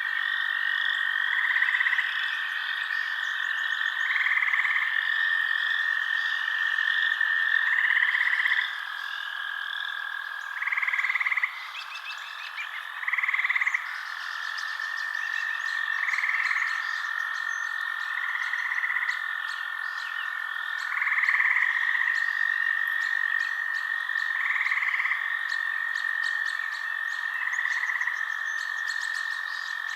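A night chorus of frogs: a steady continuous trill with a louder call repeating about every two to three seconds, over a busy chorus of higher calls and ticks.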